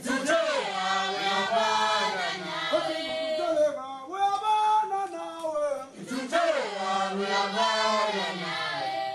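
A choir singing a chant-like Zulu song in sung phrases, with a brief break about six seconds in.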